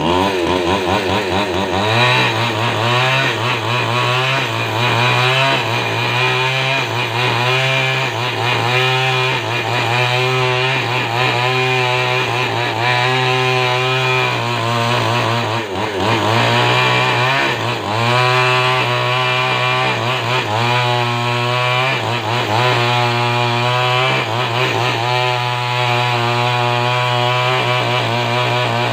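Two-stroke chainsaw running at high revs, sawing lengthwise through a coconut palm trunk to square it into a beam. The engine note dips and rises again and again as the chain loads in the wood.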